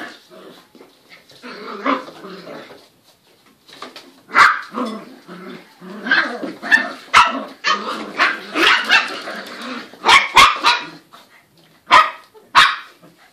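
Cockapoo puppy barking: softer growls in the first few seconds, then a string of short, sharp, high yaps from about four seconds in.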